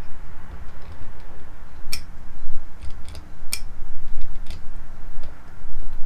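Metal tools and small engine parts clicking and tapping against each other, a few sharp irregular clicks over a low steady rumble.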